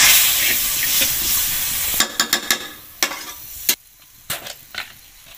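Masala water heating toward the boil in a metal wok over a wood fire, hissing and sizzling loudly for about two seconds. The hiss then stops abruptly, leaving a quieter spell with a string of sharp pops and clicks.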